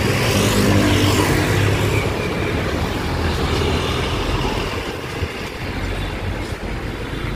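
A motor vehicle's engine passing close by, loudest about a second in and then fading, over steady road traffic noise.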